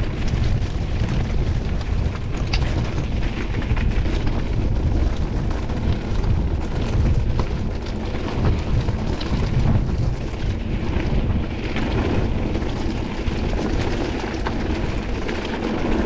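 Wind buffeting the action camera's microphone with a constant low rumble, mixed with the clatter and rattle of a mountain bike rolling over a rough, stony trail.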